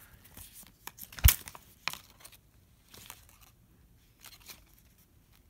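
Plastic wrappers and paper checklist leaflets crinkling as they are handled, with scattered clicks; the loudest is a sharp click a little over a second in.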